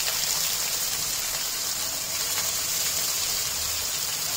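Freshly chopped onions sizzling in hot oil in a kadhai: a steady frying hiss with a few faint pops.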